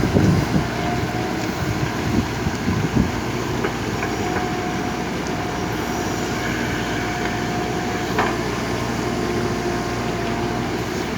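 JCB backhoe loader's diesel engine running steadily as the machine works, with a thin steady whine from about four seconds in. A few knocks come near the start and one sharp knock about eight seconds in.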